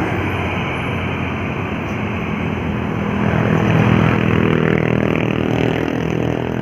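Heavy road vehicle's engine working under load as it passes close by. It grows louder to about four seconds in, then drops in pitch as it goes past.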